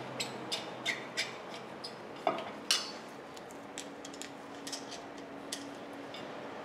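Scattered light metallic clicks and clinks, with two sharper ones between two and three seconds in, from gloved hands and a small hand tool working on a new brake rotor and its retaining screws on the wheel hub.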